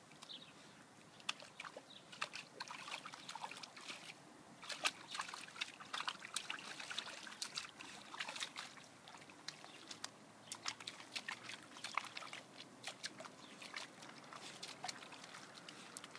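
Dog scrabbling and digging in dry, sandy soil: irregular bursts of scratching paws and scattering dirt, with a few short pauses.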